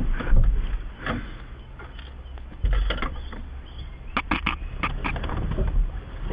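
Knocks and clatter inside a small car as its driver's door is opened, over a low rumble.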